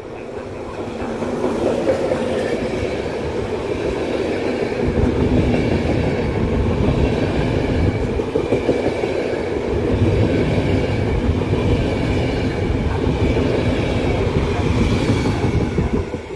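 Electric locomotive-hauled passenger train of Intercity Notte coaches passing close by on the platform track. The locomotive's approach swells over the first couple of seconds, then the coaches' wheels rumble on the rails in a long steady passage. The sound falls away sharply near the end as the last coach goes by.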